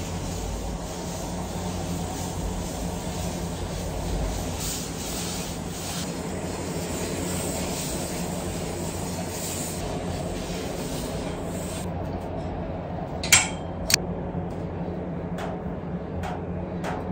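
Handheld garment steamer hissing as it is worked over hanging clothes, stopping about three quarters of the way through. Then a few sharp clicks and knocks, two loud ones close together, over a steady low rumble of outside noise coming in through an open window.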